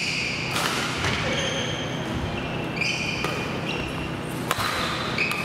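Badminton rally on an indoor court: sneakers squeaking sharply on the floor several times, between crisp strikes of rackets on the shuttlecock.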